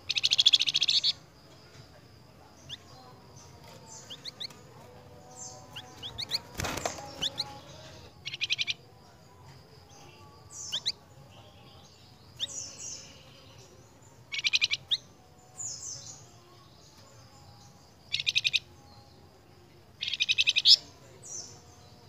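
A caged flamboyan songbird calling: five short, loud, fast trills a few seconds apart, with single high chirps and short falling whistles between them. A sharp knock sounds about a third of the way in.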